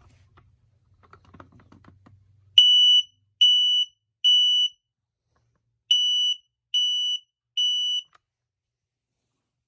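Lifesaver 0915 smoke alarm's piezo horn sounding on test: after a few faint clicks, two rounds of three loud, high-pitched beeps with a pause between. This is the temporal-three (code 3) alarm pattern.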